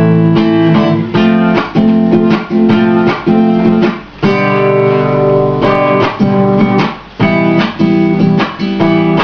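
Acoustic guitar strummed in a steady rhythm, an instrumental break without singing, with one chord left to ring for about a second partway through.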